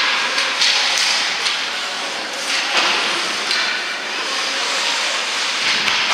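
Ice hockey play: skate blades scraping and carving the ice in a steady hiss, with several sharp clacks of sticks and puck.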